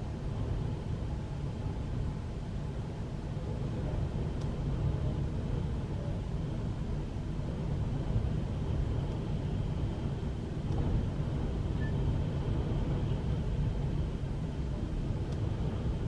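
Gale-force storm wind blowing in gusts, a low rumble that swells and eases every few seconds.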